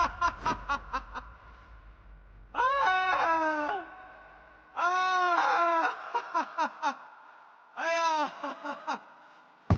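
A person's high-pitched, cackling laugh in three bouts, each a long rising-and-falling cry that breaks into a quick string of short staccato bursts, like a hen cackling.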